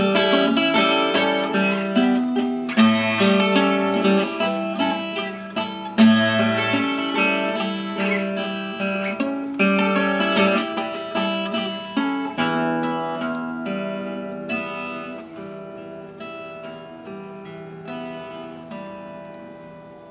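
Twelve-string acoustic guitar fingerpicked, a steady run of plucked notes with deeper bass notes beneath. The playing grows gradually quieter through the second half, and the last notes ring and fade out near the end.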